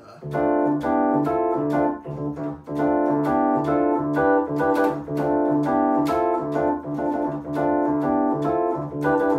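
Electronic workstation keyboard playing a simple, groovy funk riff: short chords repeated in an even rhythm over a pulsing low note.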